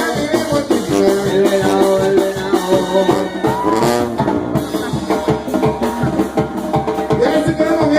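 Loud Latin dance music with a fast, steady drum and percussion beat and a melody line over it.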